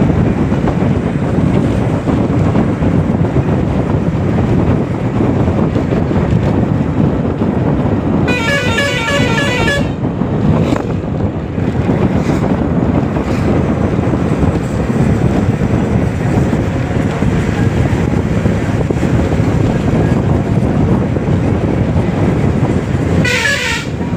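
Steady wind and road noise of a moving vehicle, with a warbling vehicle horn sounding for about a second and a half about 8 seconds in, and another short horn with a falling pitch near the end.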